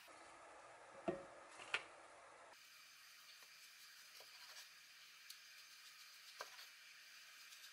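Two sharp taps of a wooden spatula against a frying pan. Then, after a pause, a few faint soft knocks of a knife cutting through an egg-wrapped gimbap roll onto a cutting board.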